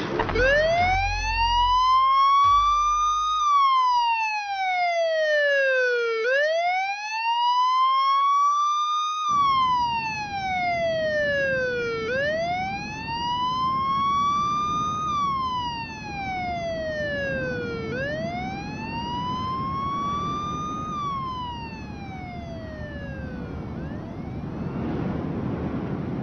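Police car siren wailing, rising and falling slowly about every six seconds for four cycles, then fading out near the end. A steady noise runs underneath from about nine seconds in.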